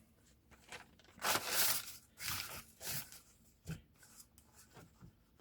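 Newspaper being ripped into strips by hand: several short tears in a row, with a couple of light clicks of handling.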